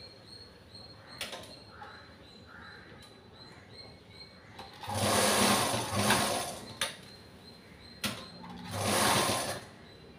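Black domestic sewing machine stitching in two short bursts of about two seconds each, the first about five seconds in and the second near the end, with light clicks between them.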